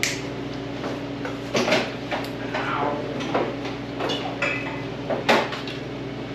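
Metal tools and car parts clanking and knocking during a teardown: a few sharp clanks with short ringing, the loudest a pair about a second and a half in and one near five seconds, over a steady low hum.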